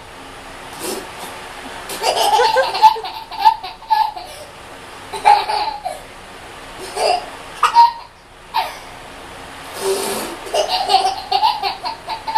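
A baby belly-laughing in repeated fits, with short pauses between them.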